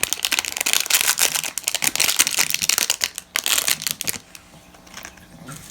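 Small plastic packet of foam slime beads crinkling as the beads are shaken out and sprinkled onto slime: a dense crackling that dies down about four seconds in.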